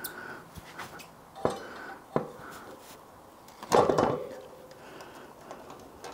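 Metal clinks and knocks as a through axle is pushed through an e-bike's front wheel hub and fork: two sharp knocks, then a louder ringing metal clatter in the middle.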